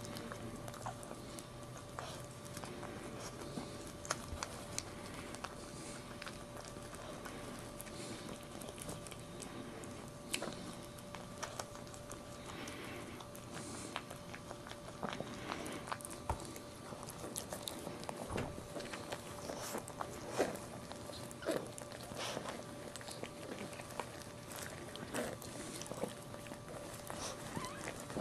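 Maltese mother dog licking and nibbling her newborn puppy to clean it: small, irregular wet licking and smacking clicks, with a faint steady hum beneath.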